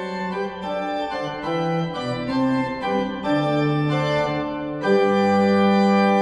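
Organ music: held chords moving from one to the next every second or so, then a louder, fuller chord about five seconds in that is held.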